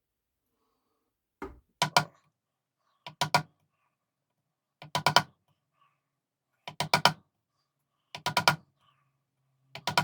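Sharp knocks of a tool being struck by hand, in quick groups of two or three, repeating about every one and a half to two seconds.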